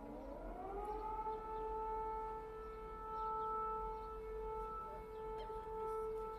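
Outdoor civil defense siren rising in pitch over about the first second, then holding a steady wail of several tones sounding together.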